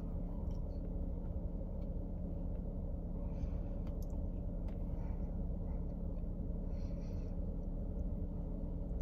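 Steady low rumble and hum of a parked car running, heard from inside the cabin, with a few faint clicks and soft rustles.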